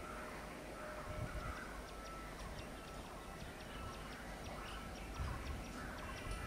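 Faint railway-station ambience: a steady background hum with a low rumble that swells about a second in and again near the end, and a few short distant bird calls.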